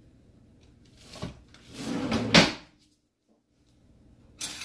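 A kitchen drawer sliding and knocking shut. A small click comes about a second in, then a scraping slide ends in a sharp, loud knock about two and a half seconds in. A short clatter follows near the end.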